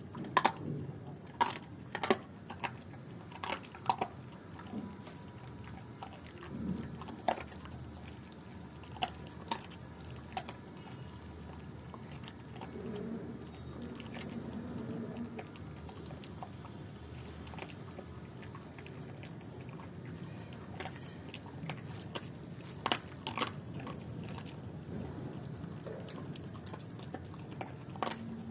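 German Shepherd chewing raw chicken feet, bones crunching in sharp, irregular cracks. The cracks come thick in the first few seconds and again about 23 seconds in.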